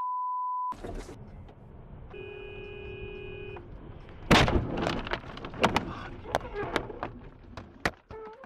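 A censor bleep, then road noise inside a car and a horn held for about a second and a half. A loud crash comes a little over four seconds in as the car collides with an SUV, followed by a string of sharp knocks and clatters.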